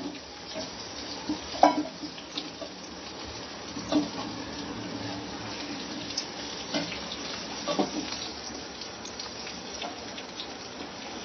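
Hot oil sizzling in a kadhai as fried stuffed bitter gourds are lifted out with a metal ladle, with a few sharp clinks of the ladle against the pan and a steel bowl.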